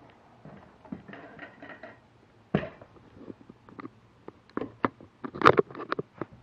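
Handling and movement noise from a carried action camera: scattered clicks, knocks and rustles, with the loudest cluster of knocks about five and a half seconds in.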